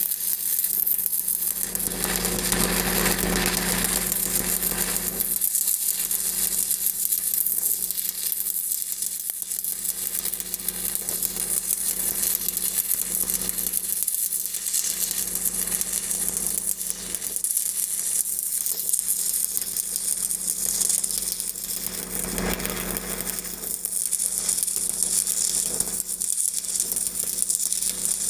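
Stick-welding arc crackling and sizzling steadily as a downhill fill pass is run into the bevel of a pipe joint.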